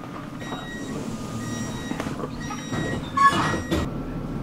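Tram interior: short warning beeps repeating about once a second over the car's steady running noise, then a loud clatter about three seconds in.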